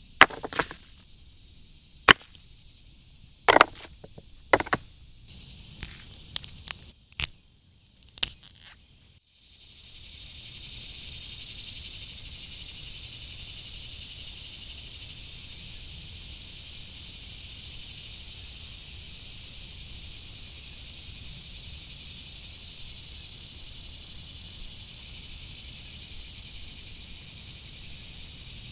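Irregular sharp snaps and knocks, one every half second to second, for about nine seconds; then, after an abrupt change, a steady high-pitched hiss.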